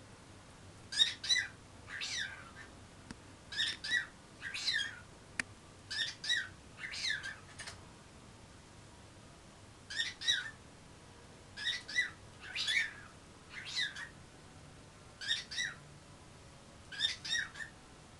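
Cockatiel calling in short bursts of two or three quick chirped notes, repeated about a dozen times with pauses between. This is its imitation of a human sneeze, "ha-kushon".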